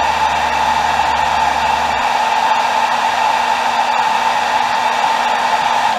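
Handheld hair dryer blowing steadily, heat-setting fresh airbrushed paint on a crankbait.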